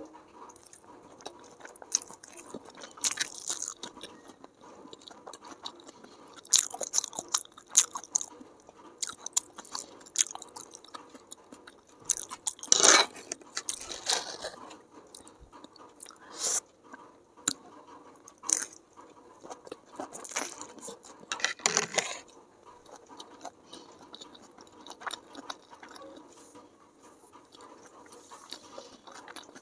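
Close-miked eating of chow mein noodles: wet chewing and slurping mouth sounds, with scattered sharp clicks of a spoon and fork against a plastic tray. The loudest bursts come about 13 and 21 seconds in.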